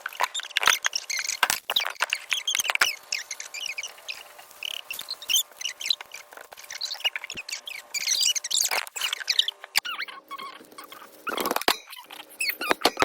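Fast-forwarded audio of slime being mixed by hand: a busy stream of high, squeaky chirps and sharp clicks.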